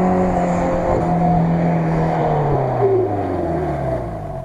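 Ford Maverick SUV's engine revving hard as it spins its wheels in circles on soft grass, the pitch sliding steadily down and the sound fading near the end as it pulls away.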